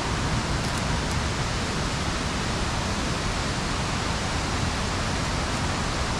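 Waterfall: falling water rushing steadily.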